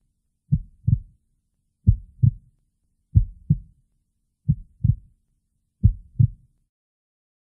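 Heartbeat sound effect: five slow double thumps, each pair a lub-dub, coming about every 1.3 seconds.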